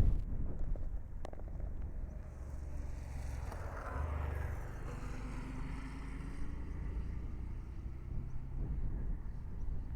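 Car driving on a mountain road: a steady low rumble of engine and road noise.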